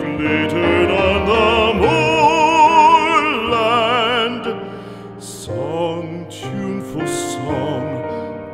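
Background music: a solo voice sings long held notes with a wide, operatic vibrato over instrumental accompaniment. It thins and drops quieter a little past the middle, then picks up again with a new phrase.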